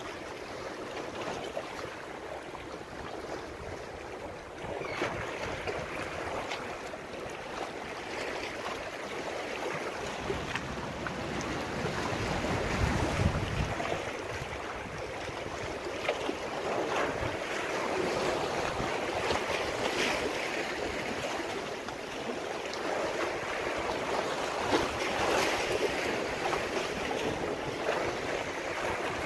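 Small waves washing and breaking against the boulders of a rock jetty, surging and easing. Wind buffets the microphone, with a strong gust about halfway through.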